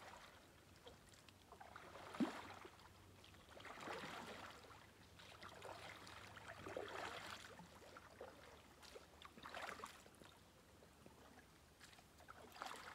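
Faint splashes and drips of a kayak paddle dipping into calm water, a stroke about every two to three seconds, with one light knock about two seconds in.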